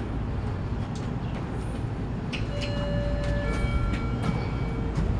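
Steady low traffic rumble with a few light clicks. About halfway through comes a thin, high squeal of several held tones lasting about two seconds.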